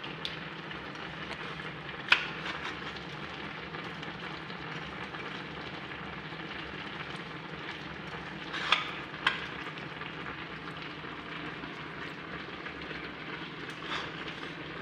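A steady hiss, broken by four sharp clicks and knocks (one about two seconds in, a quick pair near the middle, one near the end) from plates and a baking tray as chicken fillets are breaded by hand and laid down.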